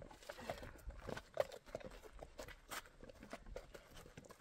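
Footsteps and a loaded metal wheelbarrow rolling over stony dirt: irregular crunches and knocks of uneven loudness.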